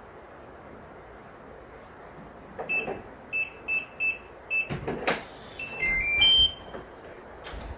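Electronic keypad beeps: five short identical high beeps as code buttons are pressed, a clunk, then a short jingle of tones at changing pitch. This is typical of a digital door lock being opened.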